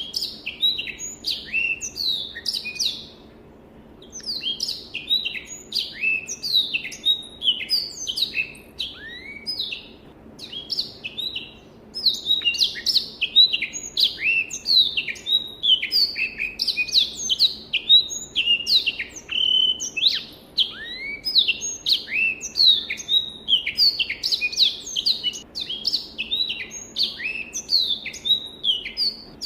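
Black-throated canary (Crithagra atrogularis) singing a long, fast song of varied high chirps, sweeping notes and trills, with a brief pause about three seconds in.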